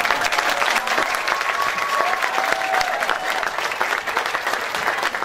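Audience applauding steadily, with a couple of drawn-out cheers over the clapping about one and two seconds in.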